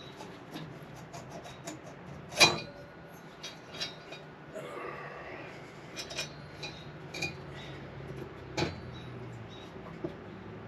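Metal clinks and knocks as the cylinder jug of a Honda Foreman ATV engine is worked loose and lifted off: a run of light clicks, a sharp knock about two and a half seconds in, a brief scrape around the middle, and another knock later on.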